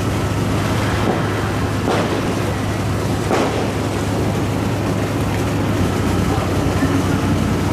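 Tugboat diesel engines running with a steady low hum under a rumbling wash of outdoor noise, with a few faint sharp cracks in the first few seconds.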